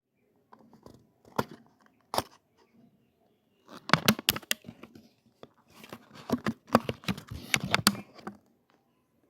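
Packaging of a Rubik's Cube being opened by hand: two sharp snaps, then two stretches of tearing and crinkling.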